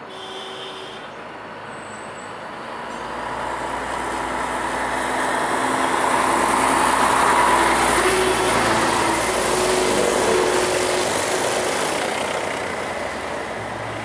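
A road vehicle passing by: its noise builds over several seconds, peaks about halfway through and fades away.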